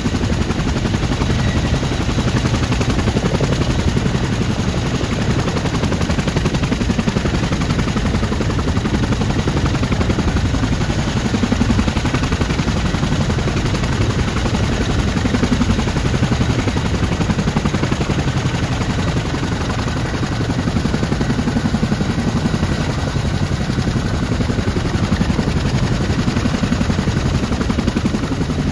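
Boeing CH-47 Chinook tandem-rotor helicopter running on the ground: a loud, steady, fast chop from its two rotors over the rumble of its twin T55 turboshaft engines.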